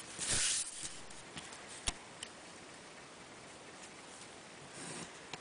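Pencil scratching on paper as a line is drawn along a ruler: a short scratchy stroke just after the start, a sharp click about two seconds in, and another faint stroke near the end.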